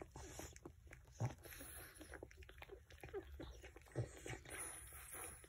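Newborn French Bulldog puppies nursing: faint wet suckling clicks and small squeaks. Two louder short noises come about a second in and about four seconds in.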